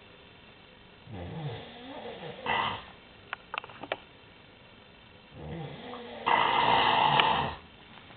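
Snoring: two long breaths, the second, about five seconds in, louder than the first, with a few short clicks between them.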